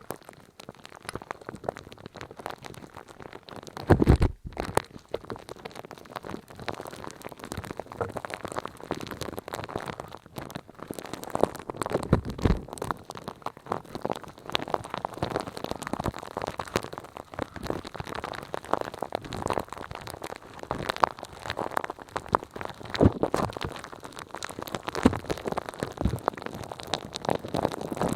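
Close-miked ASMR crackling and clicking, dense and irregular throughout, with a few louder low thumps, the strongest about four seconds in.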